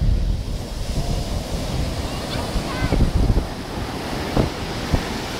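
Rough storm surf breaking and washing up a sandy beach, with wind buffeting the microphone in a steady low rumble.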